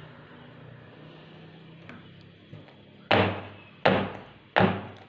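A square metal baking pan full of sponge-cake batter is banged down on the floor three times, about three seconds in, each knock with a short ring. The pan is tapped like this to knock air bubbles out of the batter before baking.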